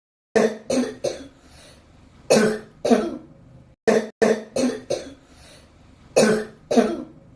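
A patient's cough: about eleven sharp coughs in fits of two to four, with short pauses between the fits.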